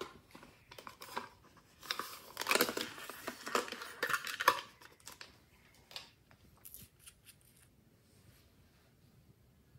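Hard plastic clicking and rattling as a small plastic case is handled and the cap is pulled off a small tube of red gel, busiest in the first five seconds. After that come only a few faint clicks.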